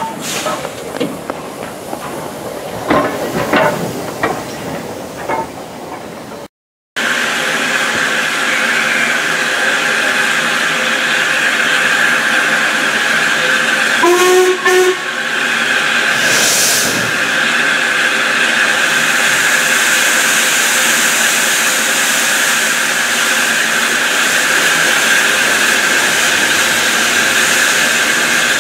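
Steam train sounds: mixed, irregular station-platform noise as a steam tank locomotive moves past, then a loud steady hiss of escaping steam heard from the carriage, with a short steam whistle blast about halfway through.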